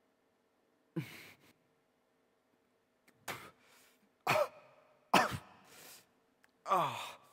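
A man's wordless, strained vocal outbursts: five short harsh bursts, each falling steeply in pitch, the first about a second in and the rest about a second apart. A faint steady hum lies underneath.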